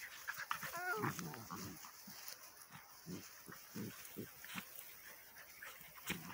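Dogs play-fighting, with a whine that rises and falls about a second in, followed by a series of short, low grunts.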